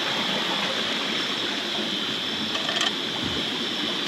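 Steady rush of a stream's running water, with a constant high hum over it and a few light clicks a little before the end.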